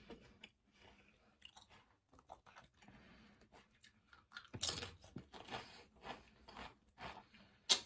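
A person chewing food close to the microphone, with irregular crunching bites, loudest about four and a half seconds in.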